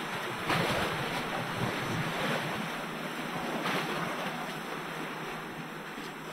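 Sea waves breaking and washing on the shore, with wind buffeting the microphone. One wave surges about half a second in and another a little past the middle.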